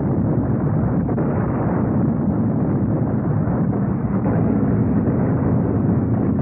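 Dense, steady battle noise: the roar of attacking aircraft mixed with a rapid crackle of anti-aircraft gunfire.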